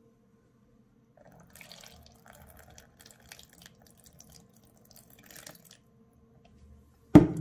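Cold water poured into the outer bowl of a self-heating hot pot over the heating pack, filling it to the water line to set the pack off; a faint trickle for a few seconds. A sharp knock near the end.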